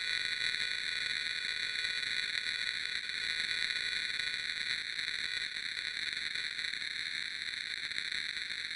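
Steady electronic static hiss, a noise sound effect with its energy in high bands around 2 and 4 kHz, giving an even, buzzing white-noise texture.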